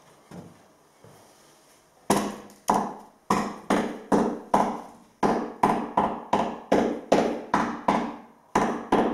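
A hammer striking repeatedly to knock a fitting into a hole in the wall, about two to three blows a second, each with a short hollow ring, starting about two seconds in after a couple of light taps.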